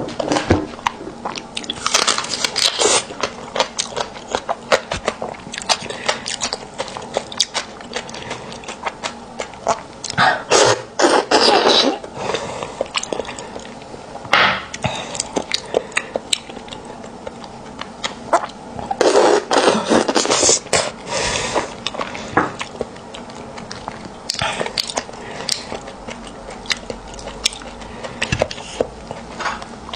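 Close-miked chewing of braised beef bone marrow: many small mouth clicks and smacks, broken three times by a louder noisy stretch of a second or two.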